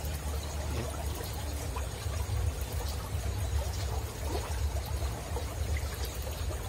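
Steady outdoor background noise: a low, uneven rumble under a soft hiss, with a few faint small ticks.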